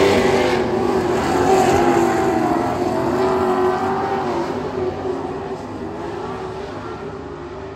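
Dirt-track super stock race cars running under throttle as they race past, the engine sound slowly fading as they pull away around the track.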